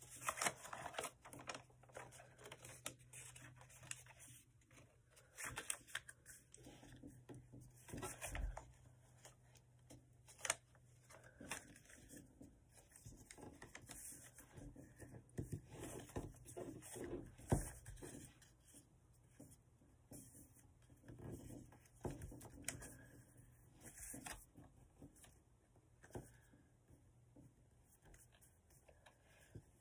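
Faint rustling and crackling of thin notebook paper being folded and creased by hand, in short scattered spells, with a sharper crinkle about seventeen seconds in.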